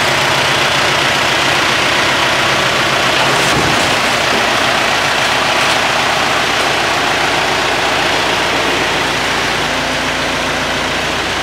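Four-cylinder engine of a 1960s Massey Ferguson 65 tractor running steadily at low revs as the tractor drives forward off a flatbed trailer, with a brief bump about three and a half seconds in. It gets slightly quieter near the end as the tractor moves away.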